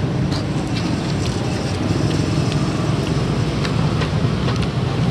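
Steady low rumble of street traffic and engine noise, with a few light clicks of a metal fork and spoon against the plate.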